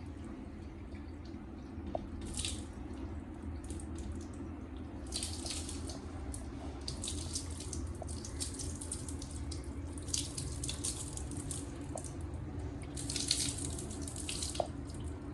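Water running from a tap during a cat's bath, with repeated hissing bursts of spray and splashing lasting a second or two each.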